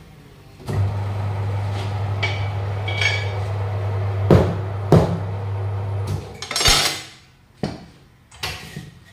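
Tyre-changer turntable motor running with a steady hum for about five seconds while a small car tyre is worked round the rim, with two sharp metal clanks partway through. After the motor stops there is a short loud burst of air hiss from the machine's pneumatics, then a few knocks as the tyre is handled.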